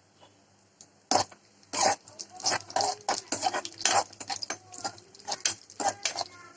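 A metal spoon knocking and scraping in a cooking pan: a burst of sharp knocks about a second in, then an uneven run of smaller knocks and scrapes. A few short pitched sounds come between them.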